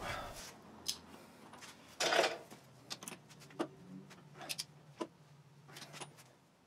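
Faint scattered clicks and light metallic clatter of a torque wrench and socket being worked on the primary drive nut of a Suzuki DR350S engine, with a brief rasp about two seconds in, as the nut is tightened past where it feels right.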